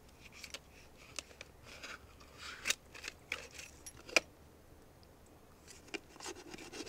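Scattered sharp clicks and short scrapes of hard objects being handled, with the loudest click about four seconds in.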